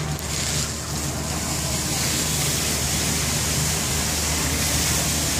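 Steady rushing spray of a large public fountain's water, which grows a little brighter and louder about two seconds in, over a low steady hum.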